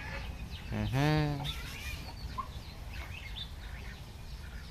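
One drawn-out call about a second in, rising slightly in pitch, then faint scattered clucks and chirps of farmyard poultry.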